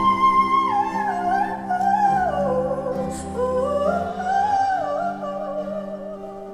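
Female singer's voice in a wordless, winding vocal run high in her range, over held accompaniment chords, fading near the end.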